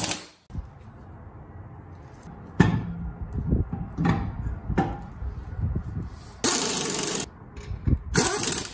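A wheel and tire knocking and scraping as it is lifted and seated onto the hub, then a stubby pneumatic impact wrench running the lug nuts on in two short bursts near the end.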